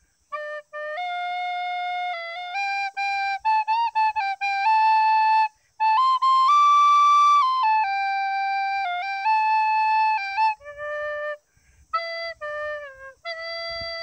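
Background music: a single melody line, like a flute, playing held notes that step up and down with short breaks between phrases.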